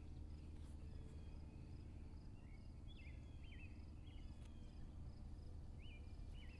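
Faint outdoor evening ambience: a steady low rumble under insects chirping in a fast, even pulse, with short rising chirps from a bird or insect repeated every second or so.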